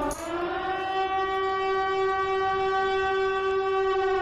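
Civil defense siren wailing as one sustained tone. Its pitch sags right at the start, climbs back within the first second and then holds steady.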